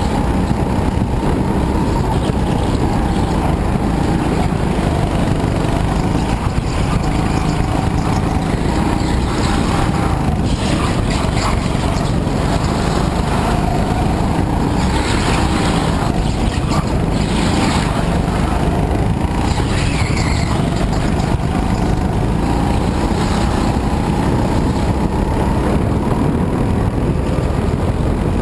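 Go-kart engine heard from on board, running hard as the kart laps, its pitch rising and falling as the driver accelerates and lifts through the corners.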